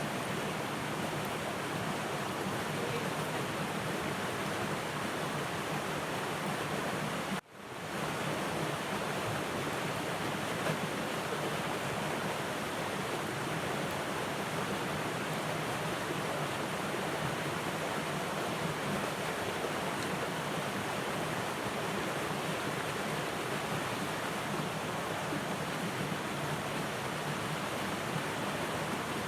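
Steady rushing of a small moorland river cascade spilling into a pool, with a brief dropout about seven seconds in.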